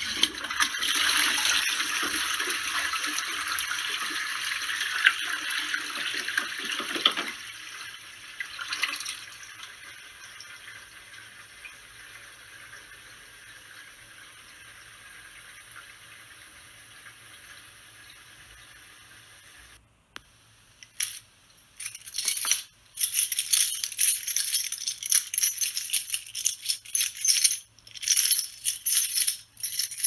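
Toilet flush: a loud rush of water for about seven seconds that stops sharply, then a quieter steady hiss of the cistern refilling, which cuts off. A second or so later, a bunch of keys jangling in repeated irregular shakes.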